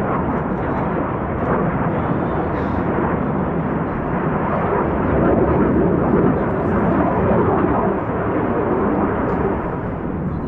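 Jet noise from the Black Eagles' KAI T-50B jets, a steady rushing roar that swells for a few seconds in the middle, with spectators' voices under it.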